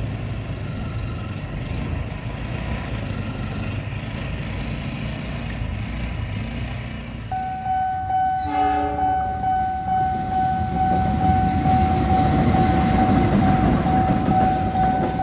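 A train coming through a level crossing, hauled by two KAI diesel locomotives. Its horn sounds briefly about eight seconds in, a steady high tone holds on from just before that, and the rumble of the locomotives and wheels grows louder toward the end.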